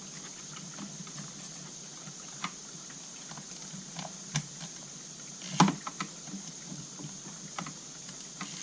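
Scattered light clicks and knocks of hand tools and small chainsaw parts being handled during reassembly, with a sharper knock about five and a half seconds in, over a steady hiss.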